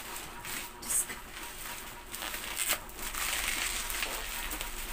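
Bubble-wrap packaging crinkling and rustling as it is handled and a box is pulled out of it, with a few sharper crackles.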